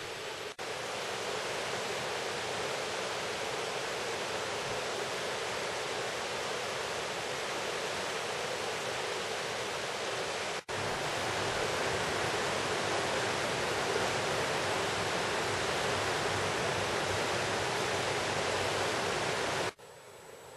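Steady rush of a shallow river running over stony rapids. It cuts out for an instant about half a second in and again about halfway through, and drops off sharply near the end.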